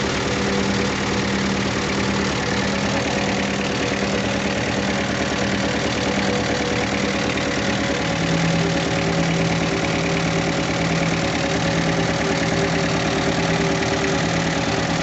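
Engine running at idle, misfiring and vibrating, which the owner puts down to a misfiring injector and a fuel-system fault.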